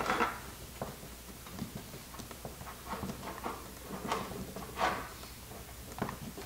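Utility knife blade cutting and scraping the inner insulation off the end of a thick 95 mm² copper cable: a string of faint, irregular scrapes and clicks, the loudest about five seconds in.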